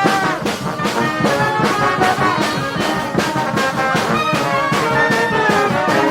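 Brass band playing live: horns over a steady drum beat.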